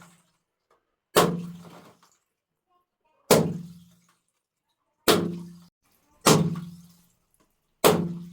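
Water-filled balloons bursting one after another: five sudden bangs a second or two apart, each fading over about half a second with a low ringing tail.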